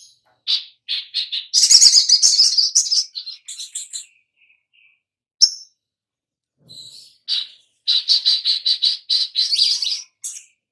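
Caged sunbird singing fast, high-pitched chirps and trills in two long bursts, with one sharp chirp in the pause between them.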